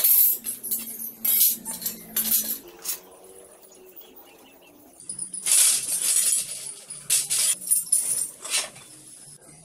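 Cast-iron treadle stand parts of an old Singer sewing machine clinking and clanking against each other and the tile floor as they are worked loose with a screwdriver and moved about. There are two spells of rattling metal: one at the start and one from about five seconds in.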